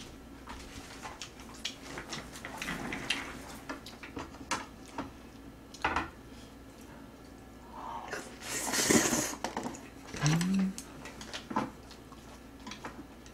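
Mukbang eating sounds: a wooden spoon and chopsticks clicking against the plates and bowl, then a loud noisy slurp of noodles about eight seconds in, followed by a short rising hum from the eater.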